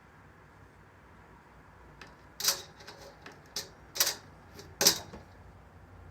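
Curtain rail runners clattering as a kitten bats and pulls at them: several sharp, uneven clicks and rattles, starting about two seconds in, the loudest three near the middle and end.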